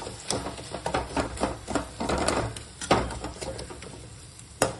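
A steel spoon stirring onion-tomato masala in a steel kadai, scraping and clinking against the pan in an irregular run, with sharper knocks about three seconds in and again near the end.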